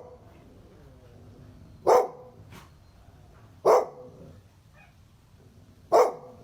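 A dog barking: single barks, three of them about two seconds apart.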